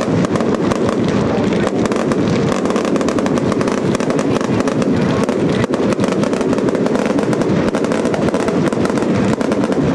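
Fireworks crackling in the air: a dense, unbroken run of many small overlapping pops and bangs from crackle effects bursting overhead.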